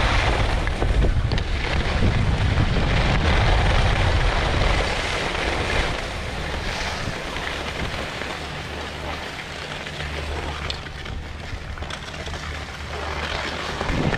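Wind buffeting a body-worn action camera's microphone during a ski run, with a steady rushing hiss from skis sliding over the snow. The low rumble eases about five seconds in as the skier slows.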